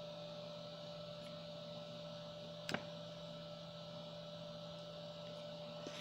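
Steady electrical hum with several held tones, and one sharp click a little under three seconds in.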